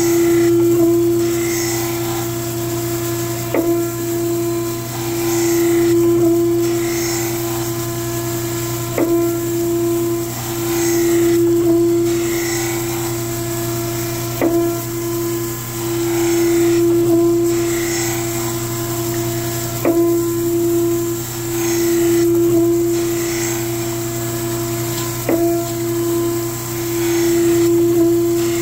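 Surface grinder wheel grinding a cast iron prism under flood coolant, on a pass taking a couple of thousandths, with the spindle humming steadily. The grinding noise swells and fades as the reciprocating table carries the work back and forth, and a clunk comes about every five and a half seconds as the table reverses.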